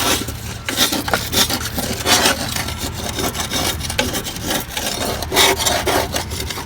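Hand tool scraping caked grass buildup off the underside of a lawn mower deck, in irregular rasping strokes.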